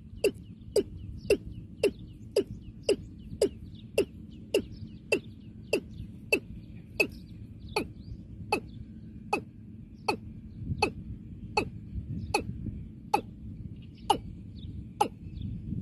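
Male watercock calling: a long, even series of short, abrupt notes, about two a second, each dropping in pitch.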